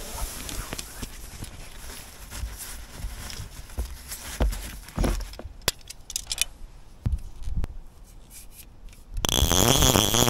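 Cloth rustling and light knocks as a fly rod is slid out of its fabric rod sock and handled, with a few sharp clicks. Near the end comes about a second of louder buzzing whir.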